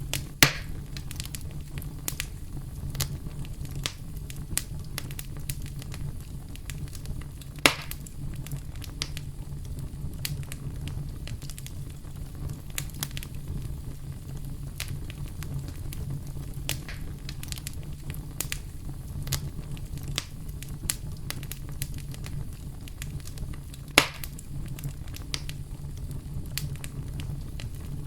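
Campfire crackling, with scattered small snaps and three loud sharp pops, over a steady deep rumble of brown noise.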